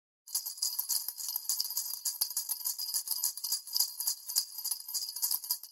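Jingle bells shaken in a quick, continuous jangle, starting a moment in and dying away at the end.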